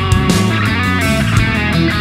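Background music: a guitar-led rock track with a steady drum beat.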